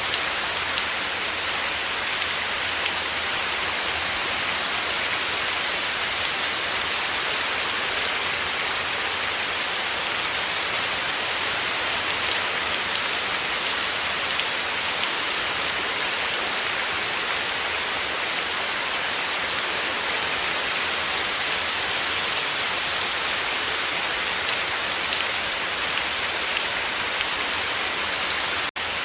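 Heavy rain falling, a steady dense hiss, with a momentary dropout near the end.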